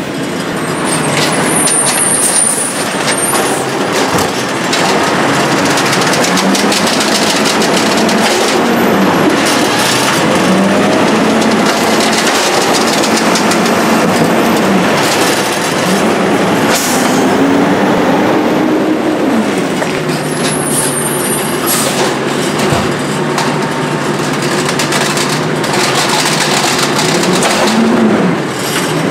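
Diesel engine of a Condor garbage truck with an Amrep HX-450 automated side-loader body, revving up and down again and again as its hydraulic arm lifts and dumps carts. Mechanical clatter throughout, with brief hisses near the start and about two-thirds through.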